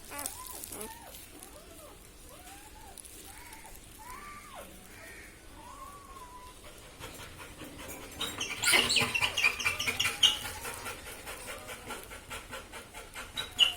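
Newborn Labrador puppies squeaking, a string of short rising-and-falling cries over the first six seconds. From about seven seconds in comes a fast, even run of breathy strokes that is loudest around nine to ten seconds.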